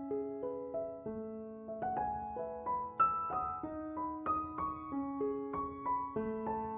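Background piano music: single notes and chords struck at an even, unhurried pace, each note ringing on as it fades.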